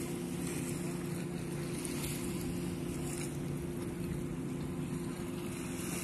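A steady, low engine hum with small waves washing on the sand.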